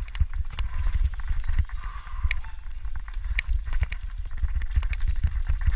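Wind rumble and irregular knocks and rattles from a camera carried fast along a rough dirt forest trail, with two short high squeaks about two and three seconds in.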